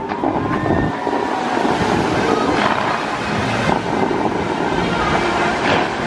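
Bellagio fountain's water jets spraying and falling back into the lake: a steady rushing hiss of water.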